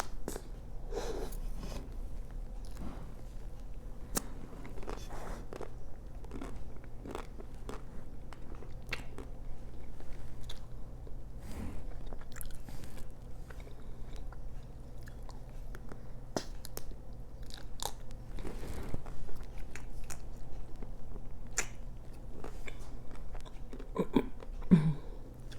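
Close-miked biting and chewing of a chocolate-coated Magnum ice cream bar: the Belgian chocolate shell cracks in sharp, irregular crunches and clicks between softer chewing.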